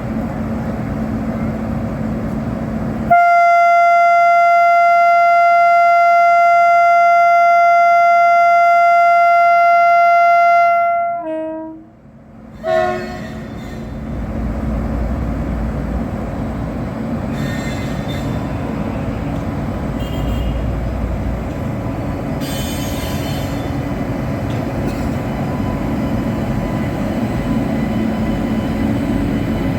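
WAP-7 electric locomotive's air horn sounding one long steady blast of about eight seconds, then breaking off into a short lower note and a brief second toot. After that comes the low rumble of the train on the move.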